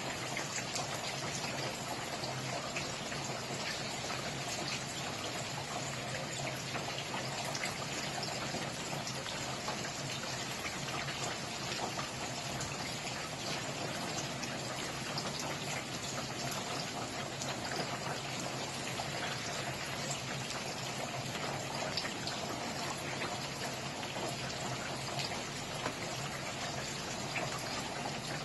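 Steady rain falling, with many individual drops pattering on a surface over a continuous hiss.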